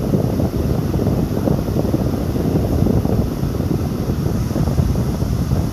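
Steady low rumbling noise on the microphone, with its energy packed into the low range and fluctuating constantly, like wind buffeting a mic.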